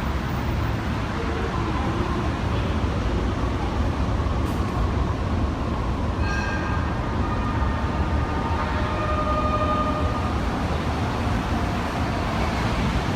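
JR East 485 series electric train running into a station: a steady rumble of wheels on track, with high squealing tones from about six seconds in as it slows.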